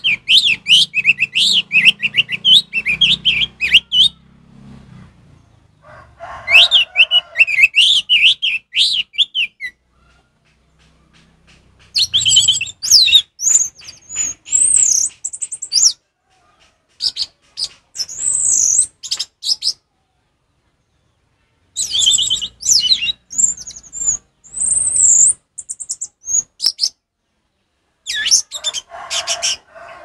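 Orange-headed thrush singing its clear 'ngeplong' song in about six separate phrases of a few seconds each, with short pauses between; the first two phrases are lower warbles, the later ones higher and more whistled.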